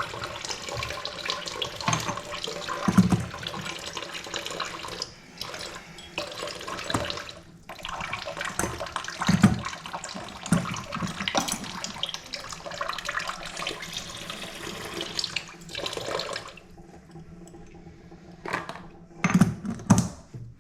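Water running from a faucet into a sink, with scattered clicks and knocks from handling faucet parts. The flow stops about three quarters of the way through, followed by a few sharp knocks.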